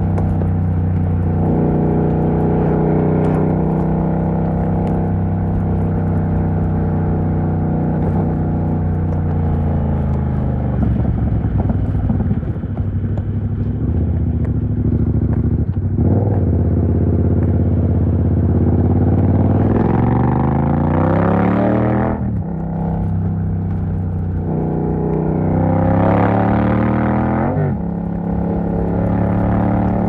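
Yamaha MT-07's 689 cc parallel-twin engine, loud through an exhaust with its dB killer removed. It runs at steady revs, then falls in pitch as the throttle eases off. In the second half it pulls hard twice, the pitch rising until a sudden drop as it shifts up a gear.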